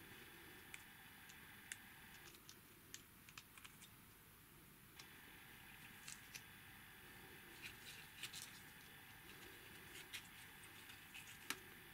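Near silence with faint, scattered small clicks and taps as thin pieces of a slot-together 3D puzzle kit are handled and pressed into place, the sharpest click near the end.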